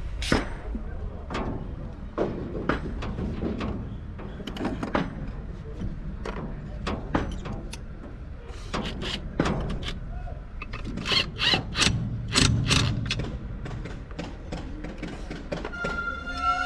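Hand tools clinking and knocking against metal parts of an excavator's diesel engine as mechanics work on its injectors: irregular sharp clicks and clanks, busiest in a run about two-thirds of the way through, over a steady low rumble.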